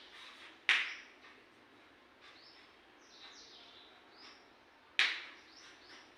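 Birds chirping in the background, with short high chirps throughout. Two sharp, loud sounds stand out, one about a second in and one near the end.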